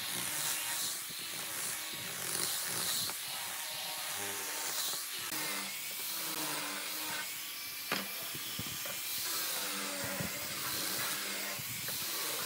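Handheld angle grinder with a sanding disc running and sanding along a wooden board, a steady hiss. A single sharp knock about eight seconds in.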